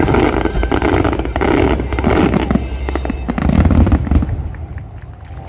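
Fireworks display: a rapid salvo of aerial shells bursting, with dense crackling throughout, dying down near the end.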